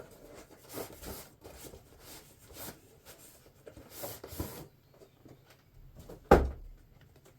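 Cardboard parcel box being unpacked by hand: a run of short scraping and rustling sounds, then a single loud thump about six seconds in.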